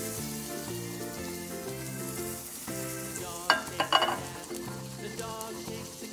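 Butter sizzling and foaming as it melts in a hot nonstick frying pan, a steady crackling hiss. A few sharp metallic clanks about three and a half seconds in, as the pan knocks against the stove grate.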